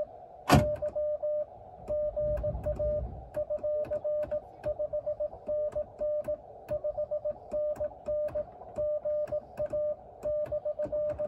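Morse code (CW) tone from a ham radio transceiver: one steady pitch keyed on and off in dits and dahs. A sharp click about half a second in.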